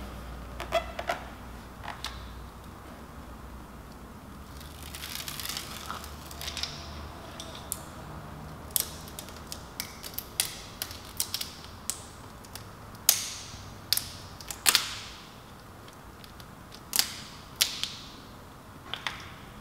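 Hand-handling noise from fitting tire sticker lettering onto a car tire's sidewall: scattered sharp clicks and taps, with a longer rustle about five seconds in and another near the middle.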